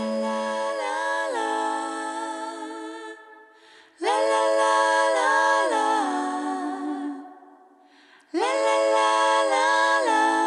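A cappella background music: sung vocal phrases, each about three seconds long, with short pauses between them.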